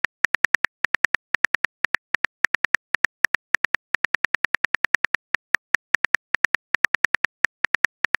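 Simulated smartphone keyboard key clicks as a text message is typed, a rapid, slightly uneven run of short crisp ticks, about seven a second.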